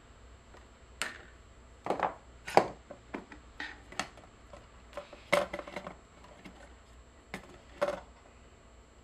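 Irregular sharp clicks and clacks of small tools and parts being handled while speaker wire leads are worked on, about a dozen in all, with the loudest knocks about two and a half and five seconds in.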